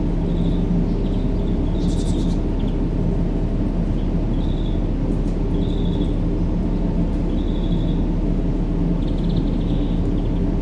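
Steady low rumbling white-noise track for a baby's sleep, with faint short high chirps now and then.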